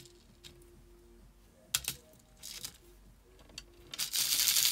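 Small clicks and taps of a craft pickup tool working at a tray of embellishment dots. About four seconds in comes a louder rustling scrape lasting over a second, as the tray is slid across the craft mat.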